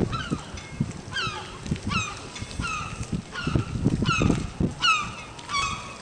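Juvenile herring gull giving its thin, falling begging call over and over, about two calls a second, with some low thuds underneath around the middle.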